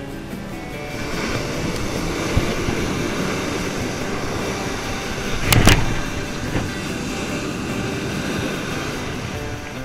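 Ocean surf breaking and washing up the beach, with wind on the microphone, a steady rushing. A brief loud thump about five and a half seconds in.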